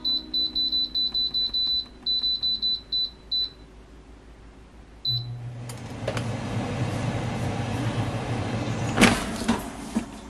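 Digital air fryer beeping in two quick runs of short high beeps from its control panel, then one more beep as it starts. Its fan motor then hums steadily with a rising rush of air, and a few knocks come near the end.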